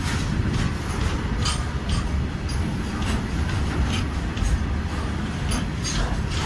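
Passenger train running along the track: a steady low rumble with a few sharp clicks from the wheels and rails.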